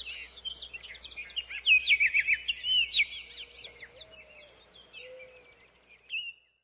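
Small songbirds chirping and twittering in quick high calls, busiest about two seconds in, then thinning out, with one last call just before the end.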